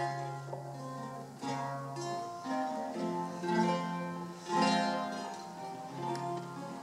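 Solo eight-course Renaissance lute played fingerstyle: plucked chords and melody notes over held bass notes, with new chords struck about every second or so.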